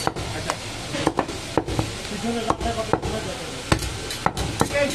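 Butcher's large knife chopping goat meat on a wooden chopping block: sharp knocks at an uneven pace, about seven of them.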